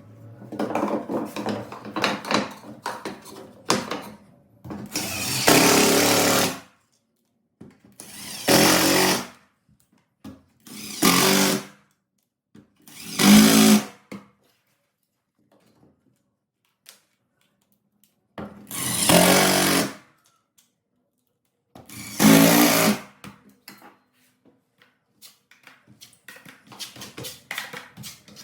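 A handheld power tool run in about six short bursts of one to two seconds each, with softer clattering and scraping between and before them.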